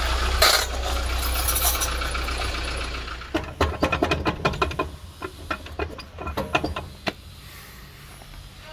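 Front wheel of a jacked-up Kia Sorento rocked by hand, giving a quick, irregular run of knocks and clicks, several a second, from play in its worn wheel bearing. It is preceded by a steady low rumble in the first three seconds.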